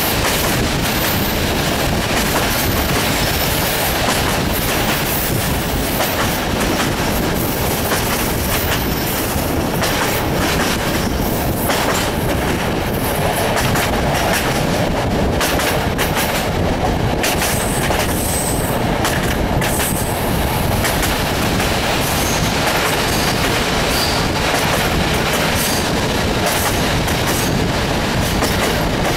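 Passenger train running along the line, heard from the carriage window: a steady rush of wheels on rail and wind, with the clickety-clack of the wheels over rail joints.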